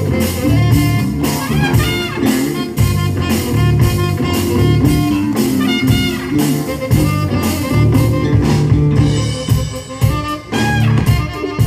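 Live band playing with electric bass guitar, a drum kit keeping a steady beat, and horns.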